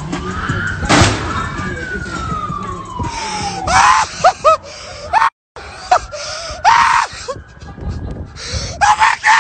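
A loud bang about a second in, then a person screaming and yelling in several loud bursts, one long scream falling in pitch.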